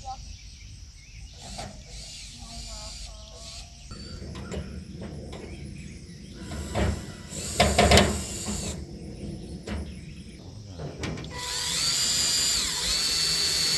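Screw gun driving a screw into the gazebo's roof tube frame, its motor whining up, holding steady for a couple of seconds and winding down near the end. Before that, a few loud knocks and clatter of parts being handled, the loudest about halfway through.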